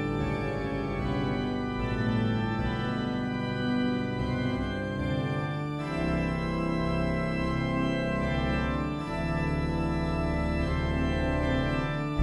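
Background music: slow, sustained organ-like keyboard chords, with the chord changing about six seconds in and again about nine seconds in.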